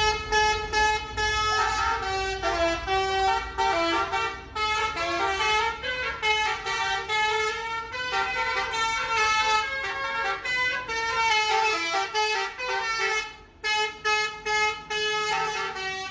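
Bus 'telolet' multi-tone air horn playing a tune: bright horn notes step from one pitch to the next in phrases, with a brief gap near the end.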